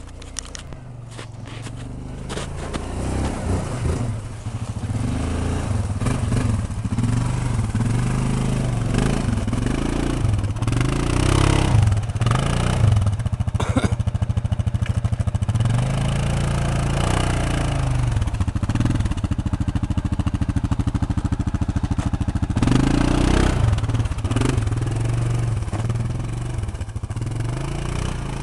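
ATV engine revving up and easing off over and over, its pitch rising and falling as the quad works up and over heaps of snow and dirt.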